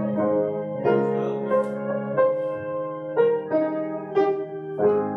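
Slow instrumental prelude played on an electronic keyboard with a piano voice: chords struck about once a second over held bass notes.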